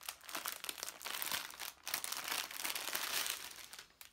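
Plastic poly mailer bag crinkling as it is pulled open by hand, the crackle dying away near the end.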